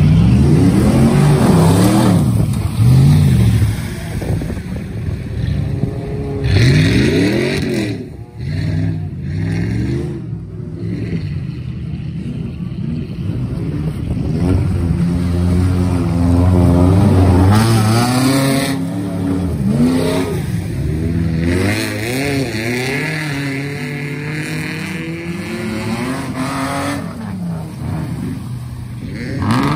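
Off-road vehicle engine revving hard and easing off again and again, its pitch rising and falling with throttle and gear changes during a sprint run.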